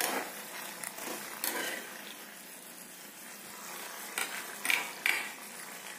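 Metal spatula scraping and clacking against a kadhai while chicken pieces in butter are stirred: a clack at the start, another about a second and a half in, and three close together near the end.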